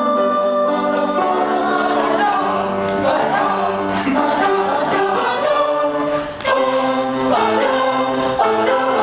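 Music with a group of voices singing together, like a choir, the notes changing every half second or so.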